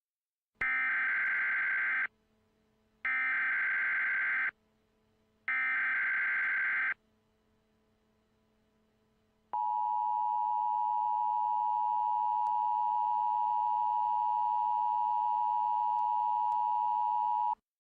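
Emergency Alert System signal: three short bursts of the digital SAME header data, each about a second and a half long, followed by the two-tone attention signal, a steady dual-pitched tone held for about eight seconds.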